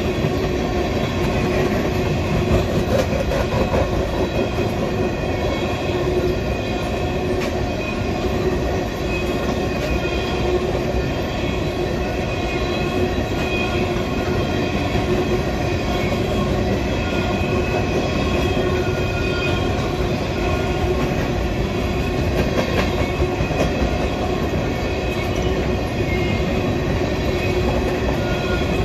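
Freight train of coal gondola cars rolling past: a steady rumble of steel wheels on the rails, with a few steady high-pitched metallic tones over it.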